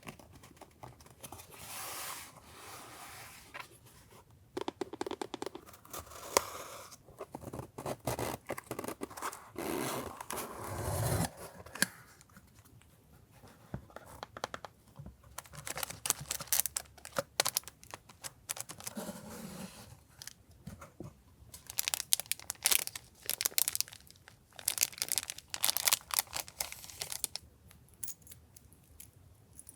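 Paper and plastic stationery packaging being handled close up: bursts of crinkling, rustling and tearing, mixed with sharp little clicks and taps.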